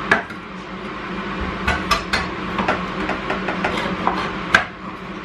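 Kitchen utensils clinking and knocking as ingredients are measured out: a metal teaspoon, a mixing bowl and a tin, with about half a dozen sharp taps spread through, over a steady low hum.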